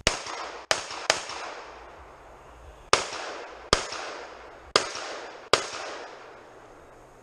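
Seven pistol shots: three in quick succession, then two, then two more, each sharp crack trailing off in a long echo.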